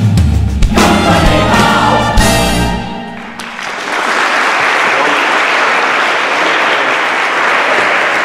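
A recorded show-tune chorus with orchestra ends on a final chord about three seconds in, then an audience applauds steadily.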